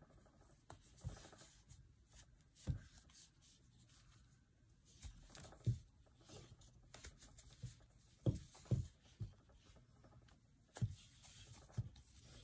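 Quiet rustling of thick ribbon yarn being worked with a metal crochet hook in double crochet, with a dozen or so scattered soft knocks and taps from the hook and hands.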